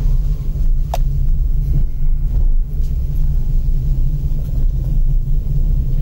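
Low, steady rumble of a car driving slowly over a rough, broken road, heard from inside the cabin, with a single sharp click about a second in.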